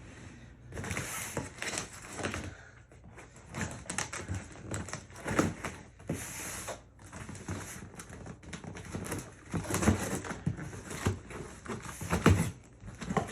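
Packaging being handled during an unboxing: crinkling plastic and paper rustling, with irregular clicks and knocks.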